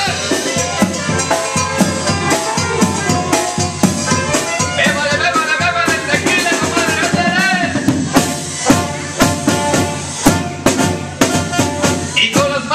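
A live brass band playing loudly: sousaphone, trombone and saxophone over a drum kit, with a steady beat and wavering melody lines.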